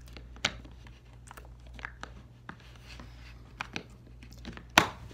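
A plastic makeup compact being handled: a string of small, irregular clicks and taps, the loudest one near the end.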